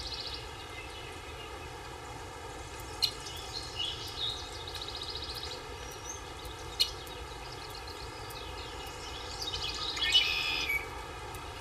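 Small birds chirping and trilling over a steady background hiss, with a louder cluster of calls about ten seconds in. Two sharp clicks stand out, at about three and seven seconds.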